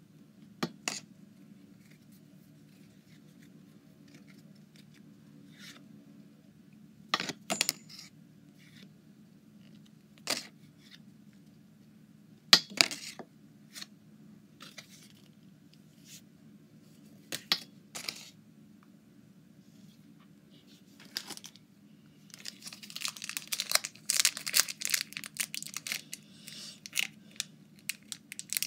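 Pokémon trading cards being handled, with a few sharp card snaps and flicks spread apart. In the last quarter there is continuous crinkling and tearing of a foil booster-pack wrapper.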